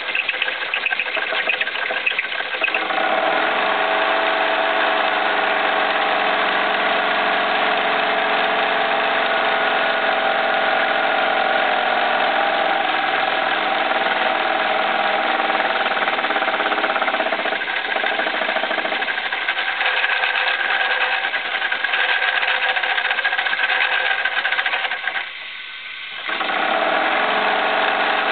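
Jensen 75 model steam engine working hard as it drives a small belted fan: a steady whirring run. About three seconds in the pitch rises and then holds. Near the end the sound drops quieter for about a second before coming back.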